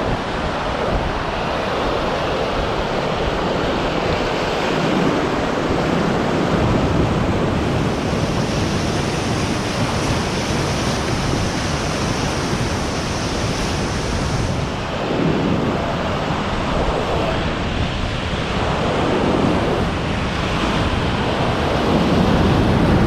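Whitewater of a class IV river rapid rushing and crashing around a raft at about 9000 cfs. The roar rises and falls in surges and is loudest near the end, as the boat drops through the big breaking waves.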